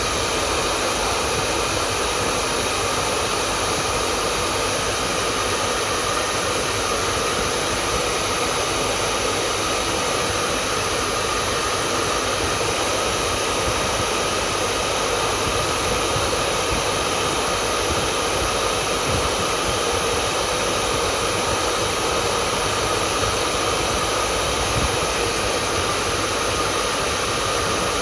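Hair dryer running steadily: an unbroken rushing hiss with a faint steady whine in it, never changing in level.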